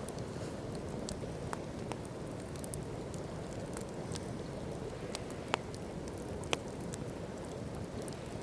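Wood campfire crackling: scattered sharp pops and snaps, two louder ones about five and a half and six and a half seconds in, over a steady low rushing.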